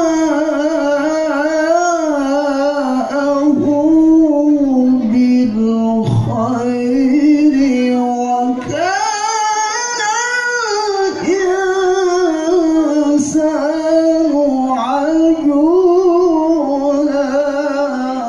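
A male qari reciting the Quran in the melodic tilawah style into a handheld microphone, holding long, ornamented, wavering notes in a high voice. The recitation phrase ends right at the close.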